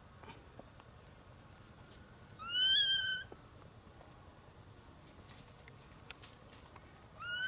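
Infant macaque giving one long high-pitched cry about two and a half seconds in, its pitch rising and then held, with a couple of faint clicks around it.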